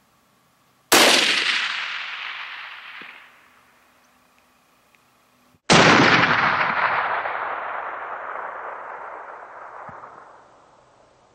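Two rifle shots about five seconds apart, each a sharp crack followed by a long rolling echo that dies away over several seconds. The second shot, which has the longer echo, is the 7mm Remington Magnum shot that hits the doe.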